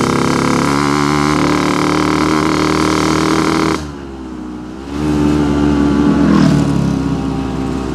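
Yamaha RX-King two-stroke single-cylinder engine running with a steady note, tuned for the deep 'ngorok' (snoring) exhaust sound. A little past halfway the revs drop suddenly and the sound falls away for about a second, then the revs climb again and it runs on loudly.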